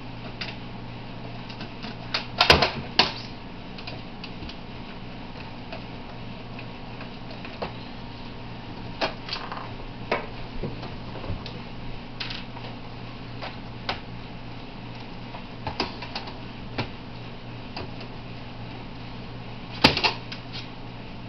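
Scattered clicks and clacks of a digital TV converter box's case and screws being handled as it is taken apart, with a louder cluster of knocks about two seconds in and again near the end. A steady low hum runs underneath.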